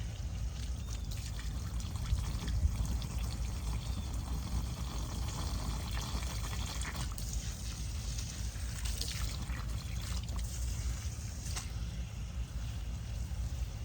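Water being poured into a dry sprinkler well pump to prime it, trickling and splashing into the housing; the pump had lost its prime and was not pulling up water.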